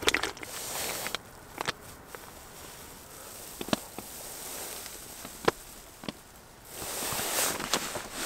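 Sipping ramen broth straight from a plastic instant-noodle bag, the noodles cooked in the bag: a few sharp mouth clicks, with rustling of the bag and clothing at the start and again near the end.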